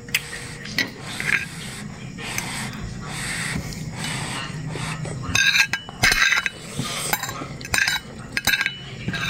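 Mouth sounds of eating rice noodles, slurping and chewing, with a spoon and fork clinking on a plate; the clinks come in a cluster in the second half.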